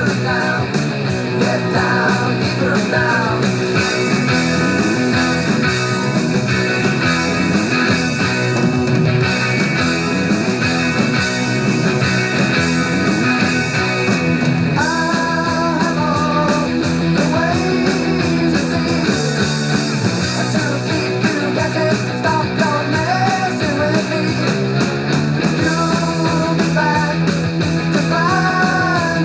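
A rock song with a singer, playing loudly and steadily throughout.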